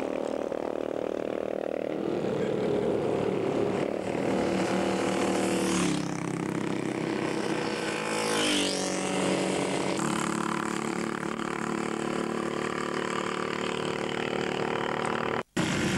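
Classic racing motorcycle engines running on the circuit. One bike passes close about eight seconds in, its pitch dropping as it goes by. The sound cuts out for a moment near the end.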